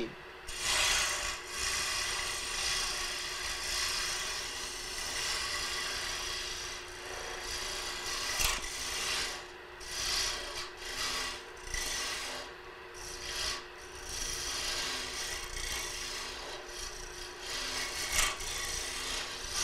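A gouge cutting a cove into a wooden spindle spinning on a wood lathe: a rough scraping hiss that swells and fades as the tool is pushed into the wood, over the lathe's steady motor hum.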